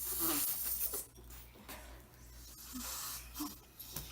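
Breathy hiss of air blown through a drinking straw into slime to blow a bubble, lasting about a second, with a fainter puff of blowing about three seconds in.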